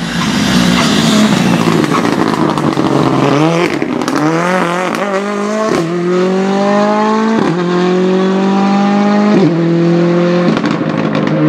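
Rally car driven hard through a bend, then accelerating away, its engine note climbing and dropping back sharply at each of about six upshifts.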